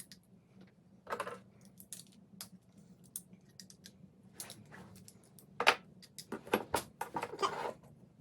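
Irregular clicks, clacks and rattles of small metal parts and hand tools being handled as a combat robot's weapon is taken apart, the loudest a sharp clack about five and a half seconds in, over a faint low steady hum.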